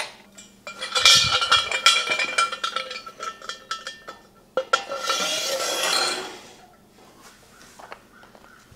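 Metal clinking and ringing from the steel shop crane as its hydraulic bottle-jack ram is pumped to raise the boom. A brief rushing noise follows about five seconds in.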